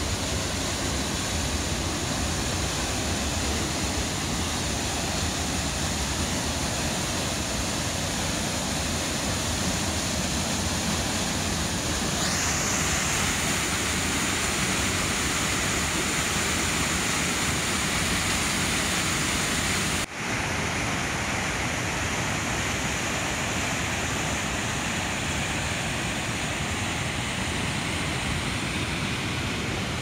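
Waterfall at full flow pouring over rock ledges: a steady rush of falling water, turning brighter and hissier about twelve seconds in, with a brief dropout just after twenty seconds.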